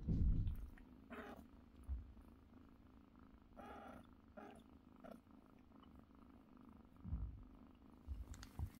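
Mother cat purring steadily while nursing her kittens, with several short calls from her in between. A few low bumps, the loudest right at the start.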